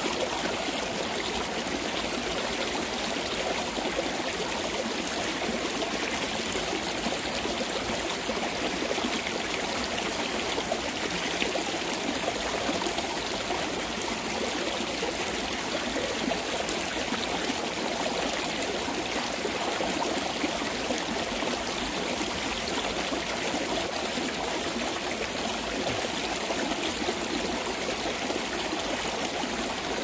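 Rain-swollen mountain stream running over rocks: a steady, even rush of water that does not change.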